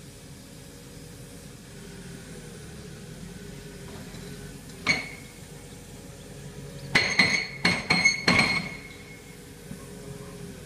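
JCB tracked excavator's diesel engine running steadily while the machine works on a concrete building, with sharp ringing metallic clanks: one about halfway through, then a quick run of four or five close together near the end.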